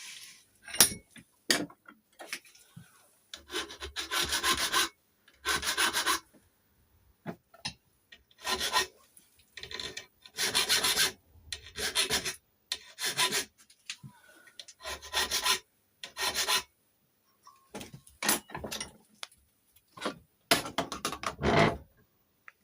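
Hand file rasping across a key blank in a series of strokes, each about a second long, with short pauses between them. This is the filing stage of impressioning a Chubb detector lever lock, taking down a cut on the key. A few short sharp clicks come near the start.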